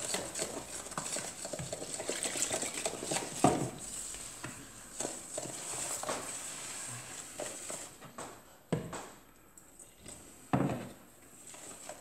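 Wooden spoon stirring flour in a plastic mixing bowl: repeated scraping and light tapping, with a few louder knocks of the spoon against the bowl.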